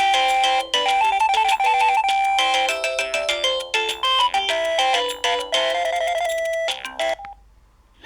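Built-in polyphonic ringtone of a Samsung SGH-E330N mobile phone playing a synthesized melody in several voices with percussion; it cuts off suddenly about seven seconds in.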